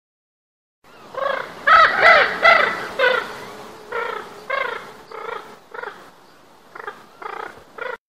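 A creature-call sound effect for the pterosaur Peteinosaurus: a run of a dozen or so short, bird-like cries, each arching up and down in pitch. The cries are loudest in the first couple of seconds, then come in quieter clusters and cut off suddenly near the end.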